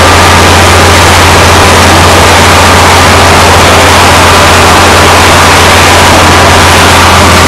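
Loud, steady engine-like roar with a constant low hum, unchanging throughout.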